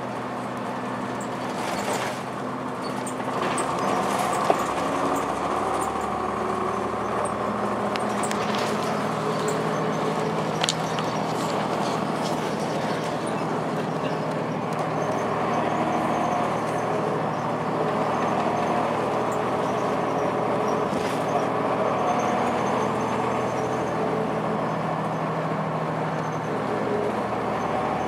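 2002 Blue Bird CS transit bus under way, heard from inside the cabin: its Cummins ISC diesel engine and Allison B400R automatic transmission give a steady drone with a whine that steps in pitch a few times, over road noise and a few sharp cabin rattles.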